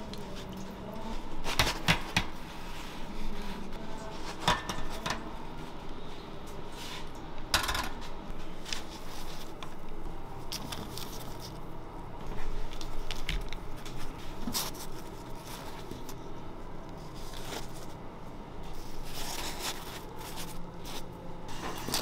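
Scattered light knocks and clicks from fried donuts and kitchen utensils being handled on plastic trays, over a faint steady kitchen hum.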